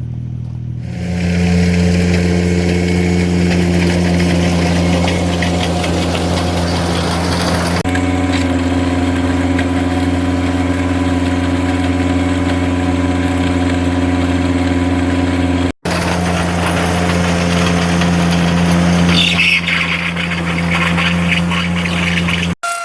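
Compact tractor engine running steadily under throttle, stepping up to higher revs about a second in. The sound cuts out abruptly twice for a moment.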